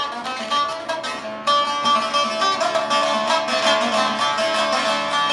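Saz, a long-necked lute, played solo as an instrumental passage: a stream of rapid plucked notes that grows louder about a second and a half in.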